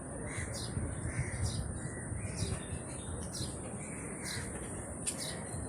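Crows cawing repeatedly, a call about every half second to a second, over a steady high-pitched drone and a low rumble.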